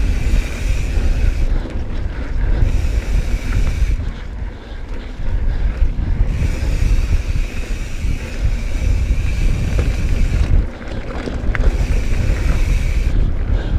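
Wind buffeting a GoPro's microphone over the rumble of a mountain bike rolling fast along a dirt trail. The noise is loud and steady, easing briefly a few times.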